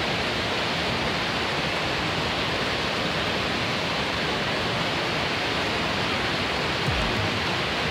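Iguazú Falls: the steady, unbroken rush of a large waterfall, heavy water plunging into the river below.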